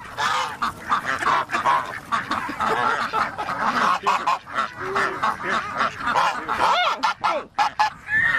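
A flock of domestic ducks quacking continuously, with many calls overlapping as they crowd in to be fed.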